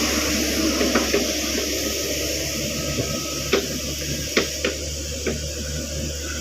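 Caterpillar 307.5 mini excavator's diesel engine running steadily under a hiss, with five sharp knocks spread through the middle.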